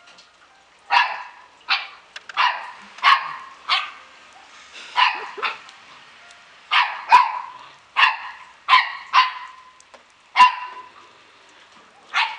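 Samoyed puppies barking: about fourteen short, sharp barks, some in quick pairs, with brief pauses between.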